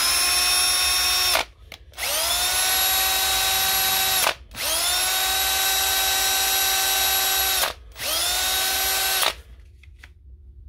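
Milwaukee M18 cordless drill running with no load in four trigger pulls, each spinning up quickly to a steady whine and then stopping. It is a test that the just-repaired M18 5 Ah battery powers the tool.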